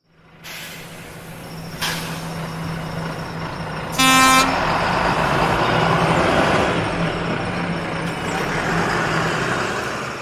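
Bus engine running with a steady hum, a short horn toot about four seconds in, then the engine noise dying away near the end.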